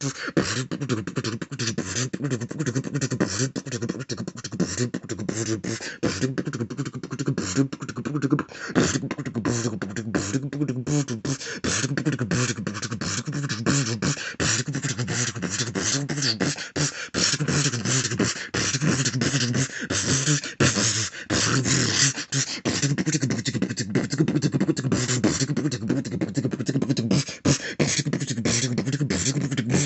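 A person beatboxing: a fast, unbroken stream of mouth-made percussion strokes.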